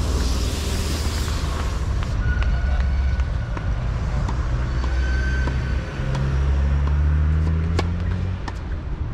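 A low, steady rumble with a motor vehicle engine rising in pitch from about six seconds in. A few sharp tennis-ball strikes from rackets stand out, the clearest near the end.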